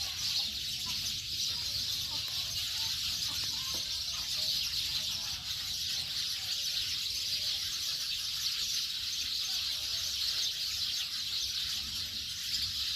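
Steady high-pitched hiss with faint chicken clucking and bird calls in the background.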